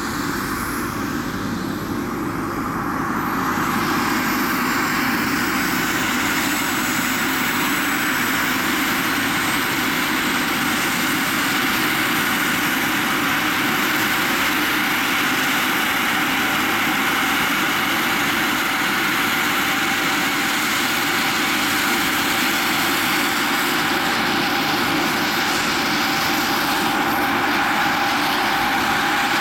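Model gas turbine of a large scale RC Bo 105 helicopter running with its rotor turning. A high whine climbs in pitch about three seconds in as the level rises, and then the turbine runs steadily.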